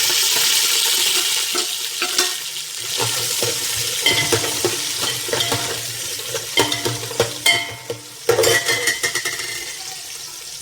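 Sliced onions sizzling in hot oil with whole spices, loudest at first and slowly dying down. From about four seconds in, a spoon scrapes and clinks against the pan as they are stirred.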